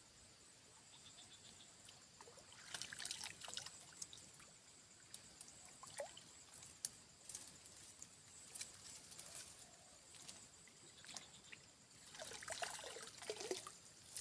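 Faint water trickling and splashing in two short spells, about three seconds in and again near the end, with scattered small clicks between.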